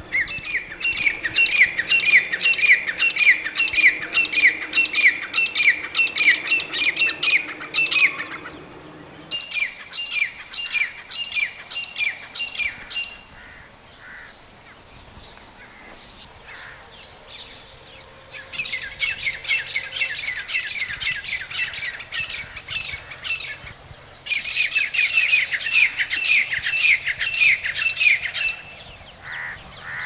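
Grey francolin calling: loud runs of rapidly repeated notes, about three a second, in four bouts, with a pause of a few seconds midway.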